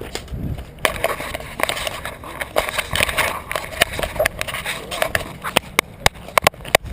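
Footsteps and rustling of clothing and gear, with a quick run of sharp clicks near the end.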